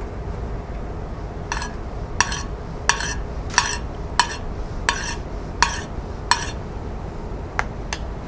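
Metal spoon clinking against a china plate and bowl as hummus is spooned and smeared onto the plate: about eight evenly spaced clinks, roughly one every 0.7 s, then two sharper ticks near the end, over a low steady hum.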